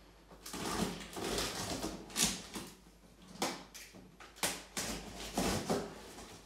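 A knife cutting through packing tape and cardboard along the top of a box: a series of short scraping, tearing strokes, roughly one a second.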